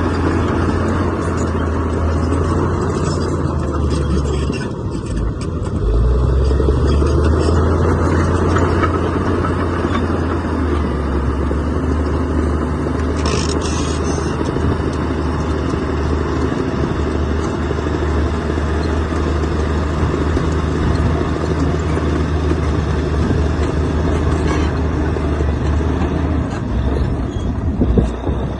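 Heavy diesel earthmoving machinery running steadily under work, a deep engine drone. The engine note dips briefly about five seconds in, then comes back slightly louder.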